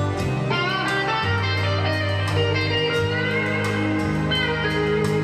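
Recorded music played back through a home hi-fi of an Arcam FMJ CD17 CD player, Audiolab 8200A integrated amplifier and AR 308 HO loudspeakers, heard in the room. A guitar plays gliding, bending notes over long, steady bass notes.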